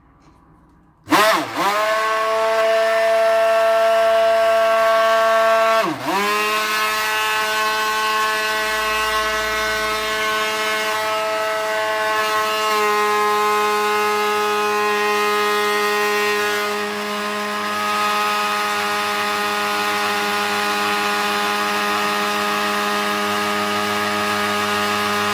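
Immersion stick blender switched on about a second in and running steadily, its blade churning oil and egg in a plastic bucket into mayonnaise. The motor's pitch drops for a moment just after it starts and again about six seconds in.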